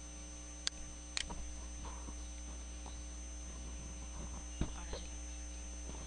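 Steady electrical mains hum picked up by the recording microphone, with three short clicks: two about a second in and one past the middle.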